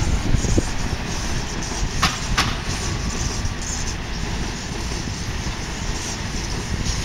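M7 electric commuter train running past, a steady rumble of wheels on rail, with two sharp clicks a little after two seconds in.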